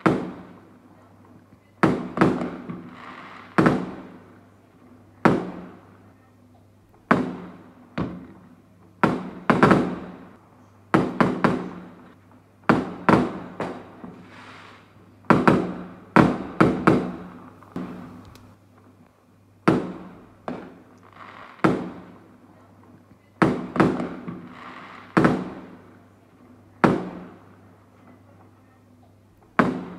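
Fireworks bursting: a long string of sharp bangs, roughly one every second or two and sometimes two or three in quick succession, each trailing off in a rolling echo.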